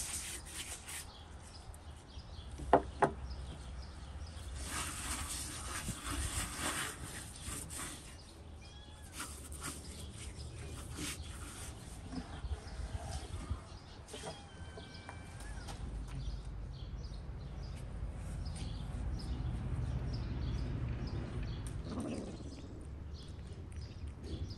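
Handling noises with faint bird chirps. Two sharp knocks close together about three seconds in are the loudest sounds, and there are scattered bursts of hiss-like noise and a low rumble later on.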